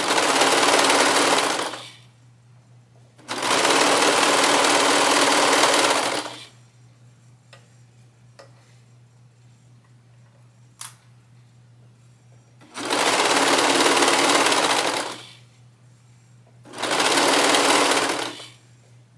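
Brother serger running in four short bursts of one to three seconds, stitching and knife-trimming the edge of a double-layer microfiber towel, with quiet pauses between bursts. A single sharp click comes in the longest pause, about eleven seconds in.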